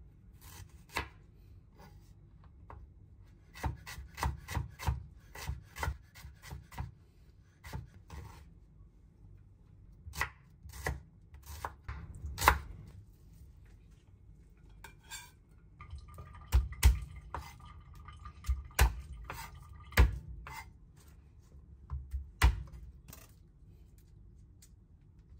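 Knife chopping on a cutting board: runs of sharp, irregular strokes with short pauses between them, the hardest strokes in the second half.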